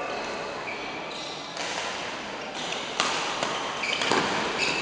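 Badminton rally: a few sharp racket hits on the shuttlecock, the loudest about three seconds in, with short high squeaks of shoes on the court floor.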